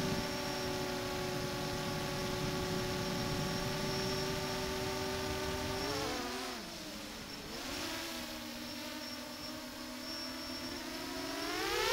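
The eight brushless motors and propellers of an X8 octocopter FPV cinelifter (Brotherhobby motors, Master Airscrew props) give a steady, buzzing whine. About six seconds in the pitch dips and wavers as the throttle comes off. It then holds lower and quieter, and near the end it climbs in pitch and loudness as the throttle comes back up.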